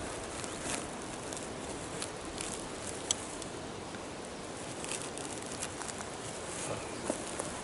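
Light clicks and rustles of fishing tackle being handled on a mat, scattered a few times over a steady outdoor background hiss.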